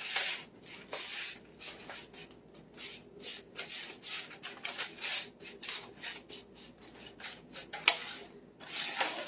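Buttered graham cracker crumbs being pressed and rubbed into a parchment-lined baking pan to form a crust, in repeated short scraping strokes about two or three a second. One sharper tap comes near the end.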